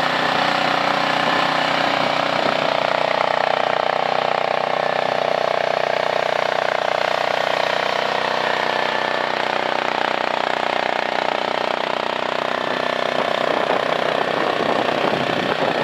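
A mini skid steer's small engine running steadily.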